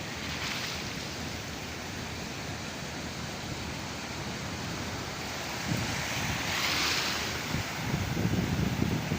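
Sea surf: waves breaking and washing in a steady rush, with one louder wash about seven seconds in. Wind buffets the microphone in gusts during the second half.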